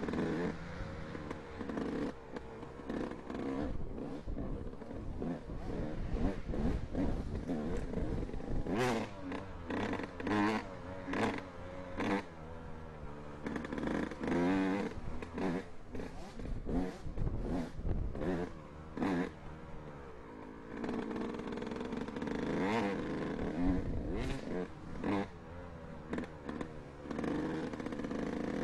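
Dirt bike engine heard from on board, revving up and falling back again and again through the track's turns and jumps. Sharp knocks and rattles from the rough ride come through, thickest in the middle stretch.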